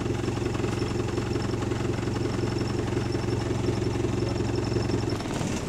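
Bus engine idling with a steady, deep throb. About five seconds in the low hum drops away, followed by a short hiss.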